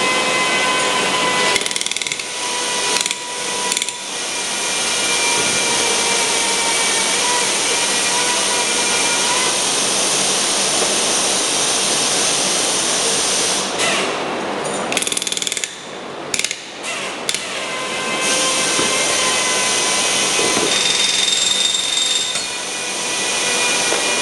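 Hand-held power drill running in long stretches, drilling rivet holes in sheet metal, with a few short stops near the start and a longer broken patch a little past the middle.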